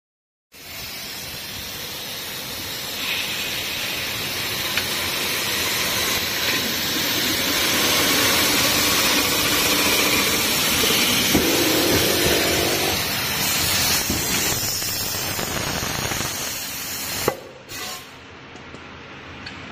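Automatic inner-sanding machine abrading the inside of a spinning aluminum pot: a loud, steady hiss of abrasive on metal over the machine's running motor. Near the end a sharp knock, after which it drops to a quieter steady machine hum.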